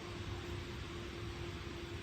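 Steady room noise: an even hiss and low hum with one steady mid-pitched tone running through it.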